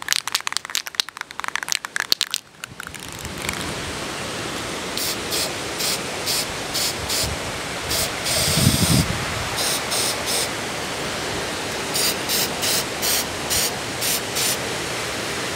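Aerosol can of flat black spray paint: the mixing ball rattles sharply as the can is shaken for the first couple of seconds, then the paint is sprayed in a series of short hissing bursts over a steady hiss.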